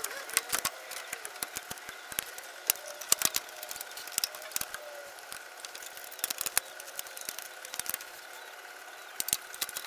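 Irregular light clicks and knocks of a new radiator being handled and fitted into its mounts under the fan shroud of a 2000 Jeep Wrangler, with small clusters of knocks about three seconds in and near the end.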